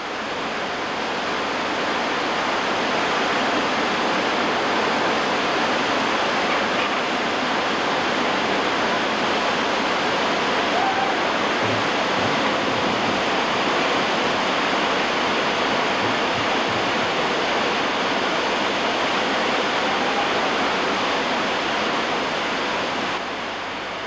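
Steady rush of a waterfall and its whitewater. The sound swells in over the first couple of seconds and eases down near the end.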